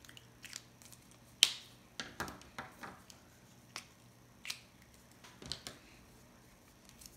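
Prismacolor alcohol markers being handled and set down on a wooden tabletop: a string of sharp clicks and taps, the loudest about one and a half seconds in.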